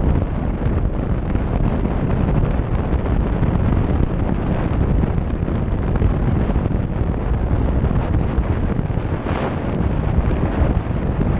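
Steady wind rush buffeting the microphone of a camera on a motorcycle riding at speed, with the ride's engine and road noise underneath, and a brief louder rush about nine seconds in.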